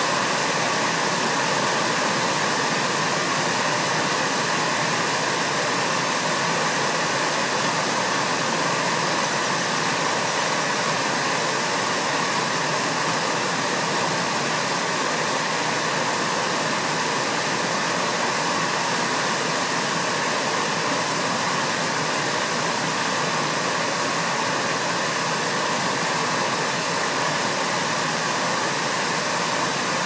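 Water pouring over a low concrete river weir: a steady, unbroken rush of flowing water.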